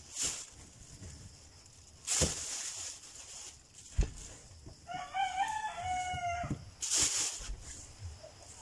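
A rooster crows once, a broken, stepped call of under two seconds about halfway through. Around it come short rustles and a sharp click as a plastic bag and the rambutan bunches are handled.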